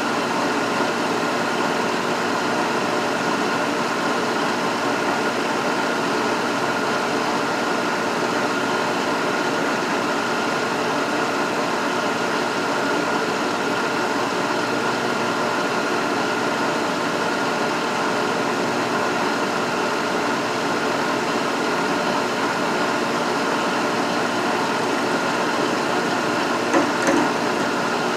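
Vertical milling machine running with an end mill taking a light skim cut across hot-rolled steel to clean off the scale: a steady mechanical hum with several faint steady tones. A couple of brief knocks come about a second before the end.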